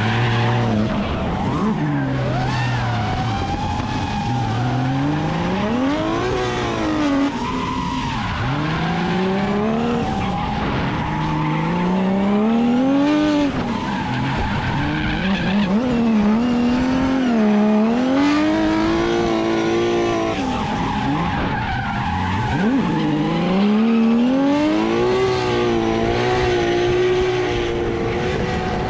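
Drift car engine revving hard, its pitch climbing and falling again and again as the car slides, over the screech of spinning, smoking rear tyres.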